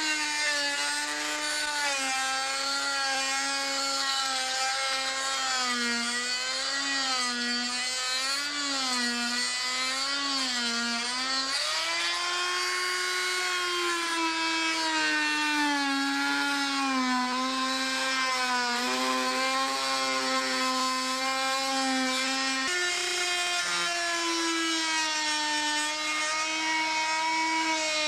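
Small handheld electric power tool running under load against the wooden door jamb, its motor whine wavering up and down in pitch as the load changes. The pitch jumps twice, about 12 and 23 seconds in.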